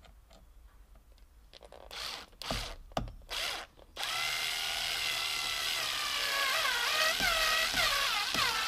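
Cordless drill running into the steering-column plastic: a few short bursts, then it runs steadily from about four seconds in, its pitch dipping and recovering several times as it bites under load.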